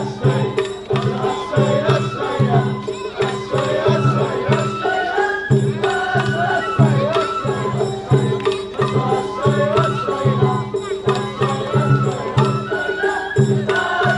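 Japanese festival hayashi music from a float: taiko drums keep a steady beat about twice a second under a bamboo flute melody.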